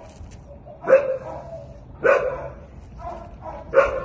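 A dog barking in short single barks, about one a second, with three loud ones and a softer one between the last two, as two dogs meet and play-tussle.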